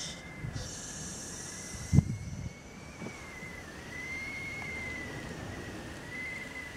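Stovetop whistling kettle on a gas hob whistling at the boil: one steady high whistle that wavers slightly in pitch, with a thump about two seconds in.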